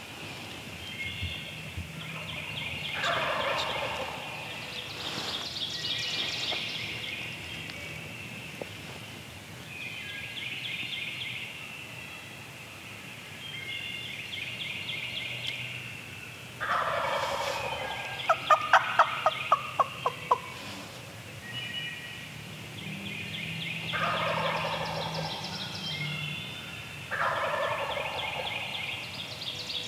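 Wild turkey gobbler gobbling four times, each a short rattling call. A quick run of about eight sharp, loud notes follows right after the second gobble. Songbirds sing steadily throughout.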